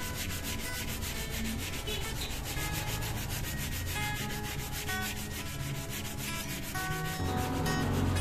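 Sandpaper rubbed by hand over an acoustic guitar's wooden bridge in quick, even back-and-forth strokes, a steady rubbing that sands the bridge down.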